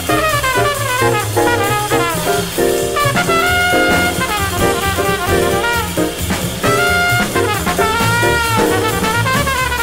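Hard bop jazz from a trumpet, alto saxophone and trombone sextet with piano, bass and drum kit. Quick running lines over a walking bass and drums, with the horns holding chords twice.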